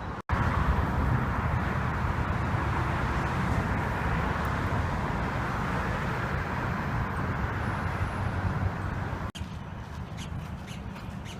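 Wind buffeting the microphone as a steady rushing noise, which cuts off abruptly about nine seconds in; after the cut, a series of short, sharp bird calls.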